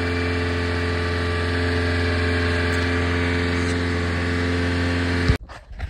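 Small four-cylinder engine of a 1995 Subaru Sambar KS4 kei truck idling steadily and evenly. It has just been tuned up with new plugs, wires and distributor cap and is running smoothly and strong. The sound cuts off abruptly near the end.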